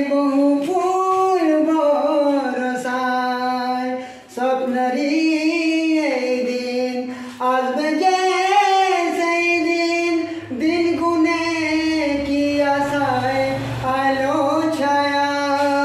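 A man's voice singing a wordless melody into a fist cupped at his mouth, in long held notes that glide from pitch to pitch. There are short breaks for breath about 4 and 7½ seconds in.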